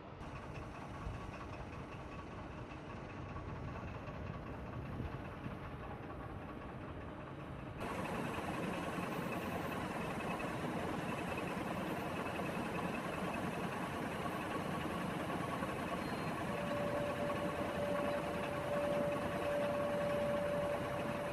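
Heavy vehicle engine running steadily, louder and closer after about eight seconds. A steady high whine joins about two-thirds of the way through.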